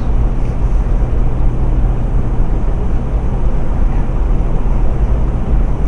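Steady, loud road noise of tyres rolling on a rough sealed road at highway speed, with a low hum underneath.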